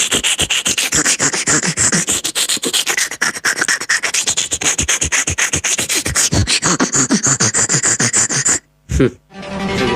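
Rapid back-and-forth brushing strokes, about six a second, bristly and scratchy. They stop suddenly near the end, and a short thump follows.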